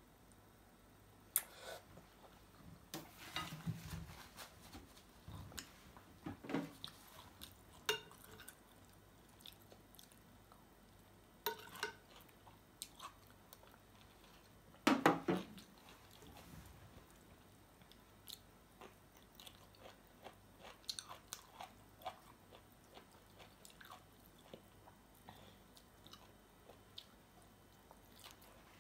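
A person eating: chewing, biting and crunching through fried chicken wings, rice noodles and cucumber salad, with irregular crunches and mouth smacks throughout and the loudest burst of crunching about halfway through.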